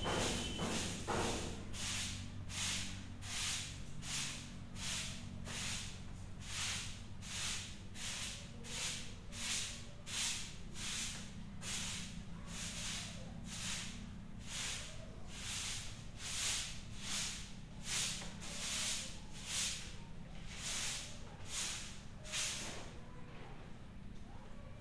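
Broom sweeping a concrete floor in steady, even strokes, about two swishes a second, stopping near the end.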